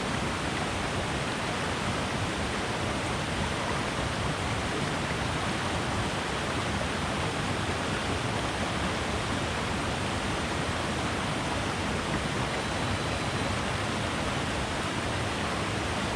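Strong Falls on the Peshtigo River: the steady rush of falling water, even and unbroken.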